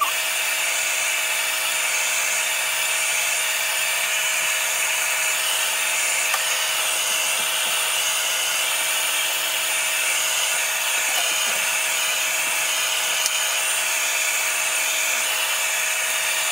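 Handheld hair blow dryer running steadily, blowing air with a constant motor hum, used to dry glue spray on a wig cap.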